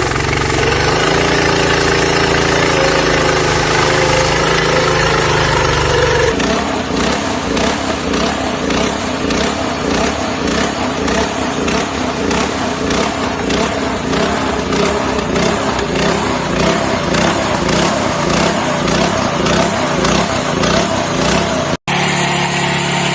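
Engine of an Okasu 15 HP earth auger running steadily. About six seconds in, the sound changes abruptly to a lower, pulsing beat of a few beats a second. Near the end it cuts out for an instant and comes back changed.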